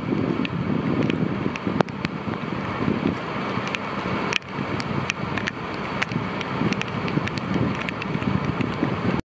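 Fire brigade aerial platform truck's engine running steadily, with scattered sharp clicks and light knocks from work in the basket.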